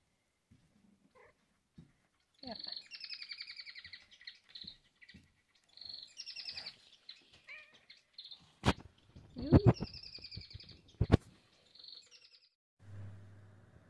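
High-pitched rapid chirping trills from an animal, in several bursts of a second or two each, with two sharp knocks in the second half.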